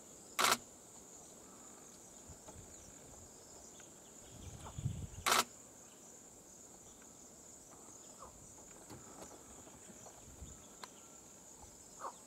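Steady high-pitched insect chorus of crickets or cicadas, with two brief sharp clicks, one about half a second in and one about five seconds in.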